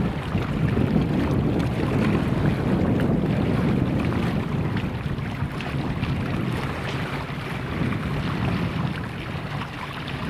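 Pratt & Whitney PT6A turboprop engines of Air Tractor AT-802 Fire Boss air tankers at climb power, heard at a distance as a steady low rumble mixed with wind on the microphone. It eases slightly near the end.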